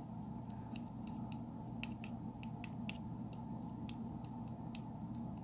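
Light, irregular small clicks, about three a second, over a steady low hum.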